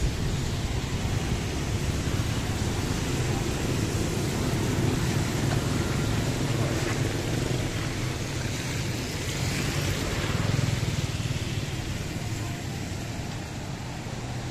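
Motor traffic on a wet city street in the rain: a steady hiss of rain and tyres over the low rumble of engines, which swells as vehicles pass about a third of the way in and again about two thirds in.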